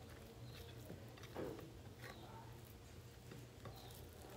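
Faint eating sounds: fingers picking through chicken, beans and okra in a bowl and mouth chewing, with a few soft ticks and one slightly louder wet sound about a second and a half in.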